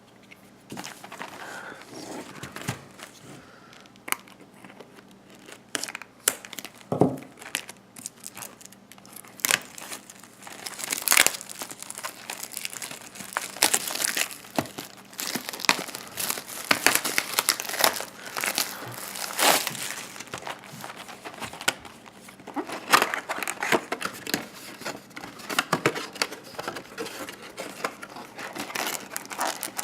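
Plastic wrapping on a box of trading cards being crinkled and torn by hand: irregular crackling and rustling, sparse at first and busier after about ten seconds.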